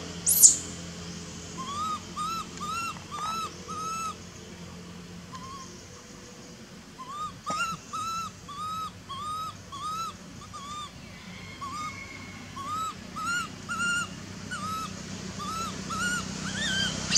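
Infant long-tailed macaque crying: short squeaky calls that rise and fall, about three a second, in several bouts with pauses between. A brief sharp noise just after the start is the loudest sound.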